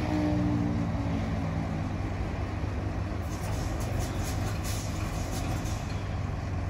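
Diesel engine of CP shunting locomotive 1181 running, its revs falling away in the first second and settling into a steady low rumble. A run of light clicks comes in about three seconds in.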